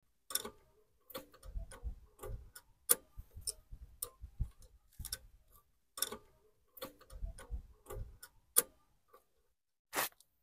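A metal hand tool clicking and clinking as it is worked against a scooter's front wheel hub: irregular sharp clicks mixed with dull knocks, in two runs, with one last click near the end.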